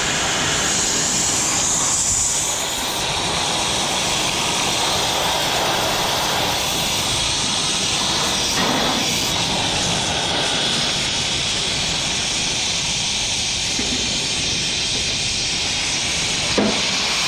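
A steady, continuous hiss that fits a MIG welding arc running without a break. A short knock comes near the end.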